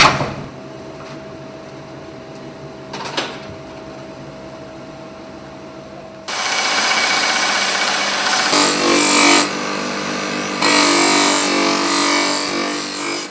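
Bench grinder grinding the edge of a hand-forged steel axe head: a loud, even hiss of steel on the wheel begins about six seconds in and swells twice. Before that there is a steady hum, with a sharp knock at the start and another about three seconds in.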